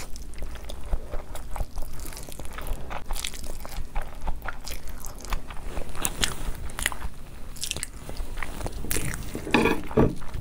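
Close-miked chewing of a mouthful of spicy instant noodles: a dense run of small wet mouth clicks and smacks. A louder burst comes near the end.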